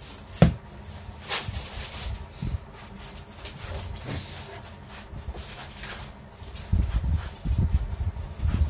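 Hands rolling soft bread dough into long logs on a wooden board: low rubbing and soft thuds, with a sharp knock about half a second in and heavier thuds near the end.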